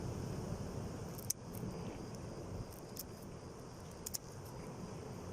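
Steady low outdoor rumble with a few sharp, light clicks scattered through it, including a quick double click about four seconds in.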